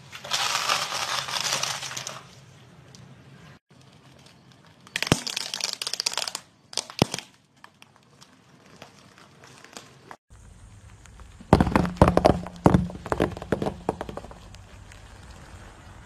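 A car tyre rolling onto a bundle of dry spaghetti, a dense crackle of snapping strands for about two seconds. After a break, two more bursts of sharp cracking and crunching as the tyre crushes other brittle objects, the last over a low engine hum.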